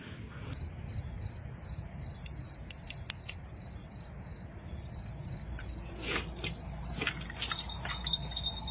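A cricket chirping: a high, pulsing trill repeated in even bursts, beginning about half a second in, with a few sharp clicks from handling.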